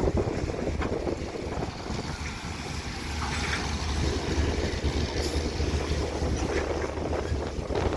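Excavator's diesel engine running steadily: a low, even drone with a few faint clicks over it.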